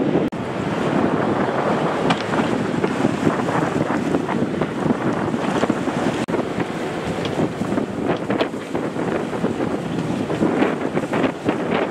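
Wind buffeting the microphone, with sea water rushing and splashing along the hull of a sailing yacht under way. The noise drops out sharply for a moment twice, once just after the start and again about six seconds in.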